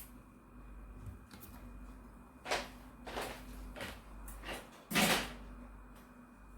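A few short knocks and rustles of things being handled in a kitchen, the loudest about five seconds in, over a low steady hum.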